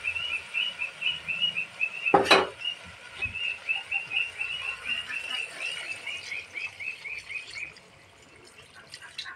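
A small animal chirping: short high chirps repeated about four or five times a second, stopping about three-quarters of the way through. About two seconds in there is one sharp clang of a metal spatula against the steel kadai.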